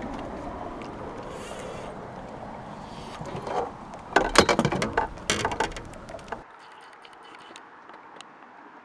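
Wind buffeting the microphone on an open boat, then a flurry of sharp knocks and rattles about four to six seconds in as a crappie is lifted aboard and handled. After that the sound drops to a quieter background with a few faint clicks.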